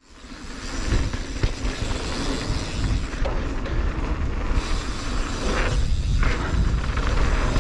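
Wind buffeting the microphone and tyre noise as a mountain bike rolls down a dirt flow trail, a loud, steady rush with heavy low rumble that fades in over about the first second.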